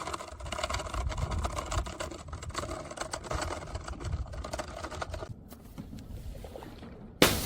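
Crackling and crunching of objects being crushed for about five seconds, then a quieter pause. Near the end comes a sudden loud smash of a glass bottle breaking, the loudest sound here.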